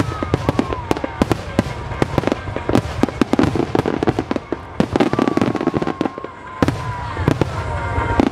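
Rapid-fire barrage of aerial firework shells bursting, a dense run of sharp bangs and crackles one close on another.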